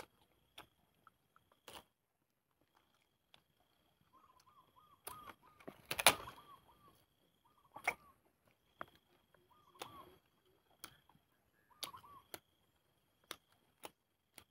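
Fresh leaves being chewed close to the microphone: scattered crisp clicks and crunches, loudest about six seconds in. A bird repeats short chirps in small bursts from about four seconds in.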